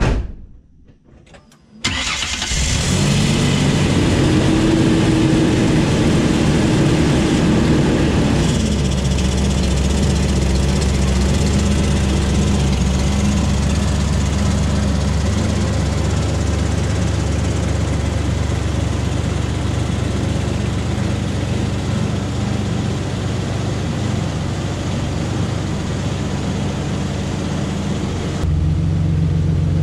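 A 2004 Ford Ranger FX4's V6 starts about two seconds in and runs at a raised cold-start idle. A few seconds later it drops to a steady idle, the exhaust now quiet through a newly fitted muffler. Near the end the sound switches abruptly to a louder, deeper engine sound.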